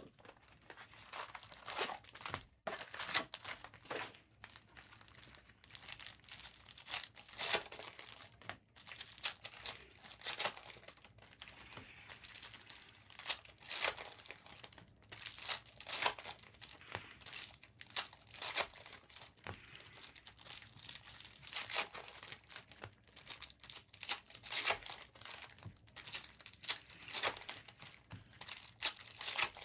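Foil trading-card pack wrappers being torn open and crinkled, in repeated irregular bursts.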